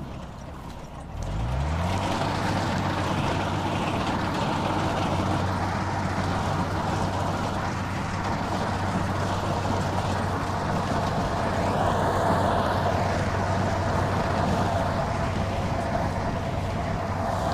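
Kubota rice combine harvester running while it cuts rice: its engine rises in pitch and loudness about a second and a half in, then runs steadily with a low hum and a steady high whine over it.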